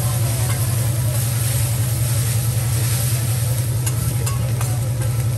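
Egg fried rice sizzling on a hot teppanyaki griddle as steel spatulas scrape and chop through it, with a few sharp spatula clicks on the steel about four seconds in. A steady low hum runs underneath.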